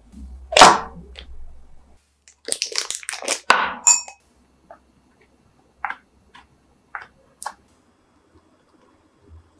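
A loud knock about half a second in, then a couple of seconds of crinkly plastic piping-bag rustling with a light clink of glass as choux pastry batter is loaded into the bag. A few scattered soft clicks and squishes follow as the batter is piped onto a metal baking tray.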